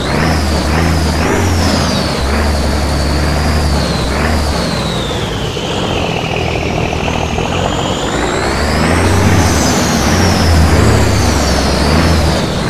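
Radio-controlled scale model M54A2 truck running, its motor and gearbox whining high, the pitch dropping about halfway through and climbing again near the end as it slows and speeds up, over a low steady drone.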